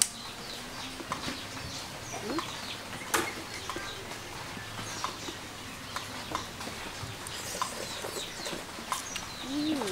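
Farmyard ambience: chickens clucking with many short bird chirps, and one sharp click about three seconds in.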